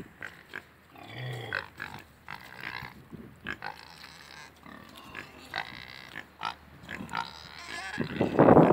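Pig giving a run of short, pitched grunting calls, with small clicks in between. Near the end a loud rushing noise comes in.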